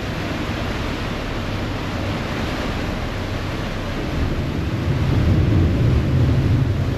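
Ferry under way: a low engine rumble with wind buffeting the microphone and the rush of water along the hull. The low rumble grows louder about four seconds in.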